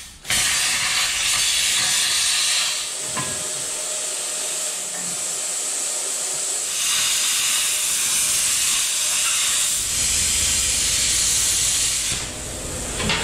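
Plasma cutter hissing as it cuts through steel, in two long loud stretches with a quieter spell between.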